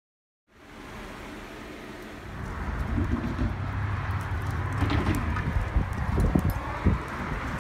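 Outdoor street noise: a steady hiss with irregular low rumbling from wind on a phone microphone, starting after a brief silence and growing louder about two seconds in.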